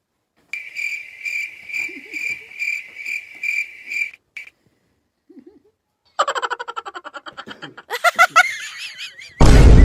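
Comic sound effects: a high pulsing chirp for about four seconds, then a fast rattling run of pitched pulses, then a loud noisy crash near the end.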